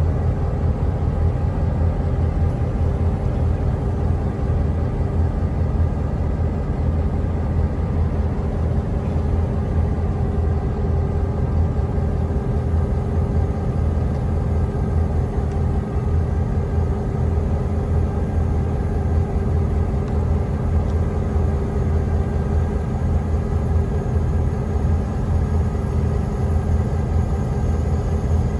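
Diesel freight locomotives idling at a standstill: a steady low engine rumble.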